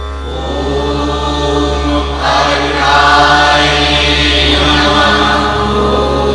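Music: a steady drone under chanting voices in unison, which swell in about two seconds in and ease off near the end.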